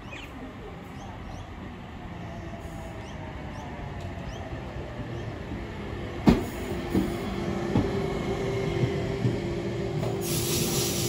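Electric passenger train pulling into the platform and slowing to a stop, growing louder as it draws in. A whine falls slowly in pitch, a sharp clack comes about six seconds in, and a steady tone follows as it brakes. A hiss comes near the end.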